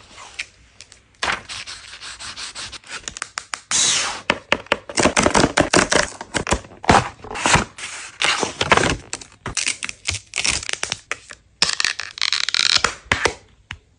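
Close-miked crackling, scraping and tapping as a new phone's packaging and accessories are handled. Packaging is slit open with a cutter, and a clear plastic phone case is handled near the end. The sound comes in dense runs of crisp clicks and scratches, with a brief pause before the last loud run.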